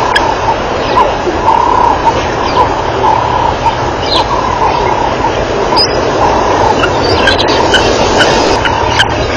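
Birds chirping in short calls over a steady rushing background noise, with a recurring high buzz; the chirps come thicker near the end.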